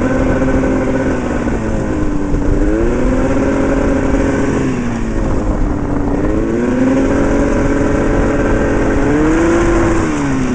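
Twin-cylinder two-stroke engine from a 1979 Arctic Cat El Tigre 5000 snowmobile, powering a go-kart under way, with the revs climbing and dropping back several times as the throttle is worked.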